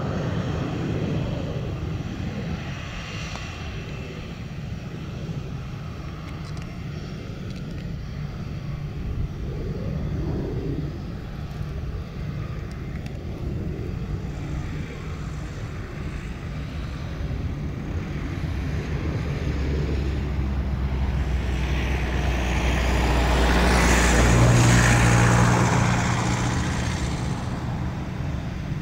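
Airbus A319-111's twin CFM56-5B jet engines running at taxi power as the airliner taxis, a steady hum and whine that swells to its loudest about three-quarters of the way through, then eases off.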